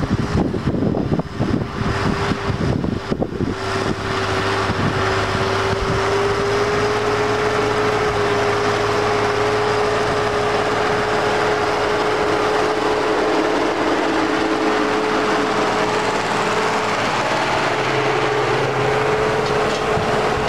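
Ursus 1224 tractor's diesel engine working under load as it pulls a cultivator, a steady drone with a held higher tone over it. The sound is uneven and knocking for the first few seconds, then evens out.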